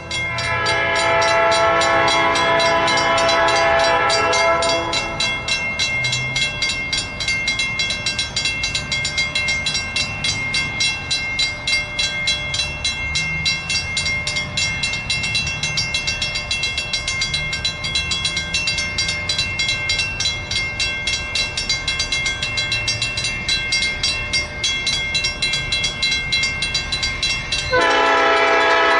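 Diesel locomotive horn sounding a chord of several tones for the first five seconds or so. A grade-crossing bell then rings rapidly over the low rumble of the approaching locomotive, and the horn sounds again, louder, near the end.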